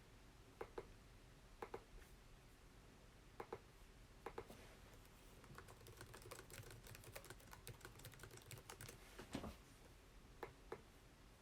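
Faint clicking and tapping of a computer keyboard and mouse: single clicks and pairs about a second apart, with a quicker run of taps in the middle.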